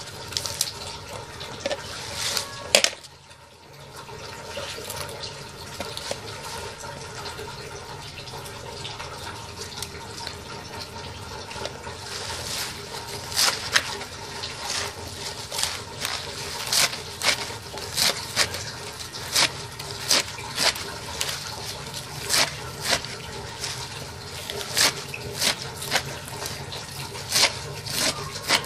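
A kitchen knife chopping bok choy on a metal tray. From about halfway through, each stroke clicks sharply against the metal at a steady pace of one to two a second, over a steady background hiss.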